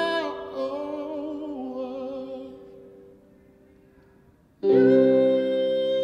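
A man's sung line with vibrato over a held keyboard note fades away by about three seconds in; after a brief near-silent pause, a loud sustained keyboard chord comes in suddenly near the end.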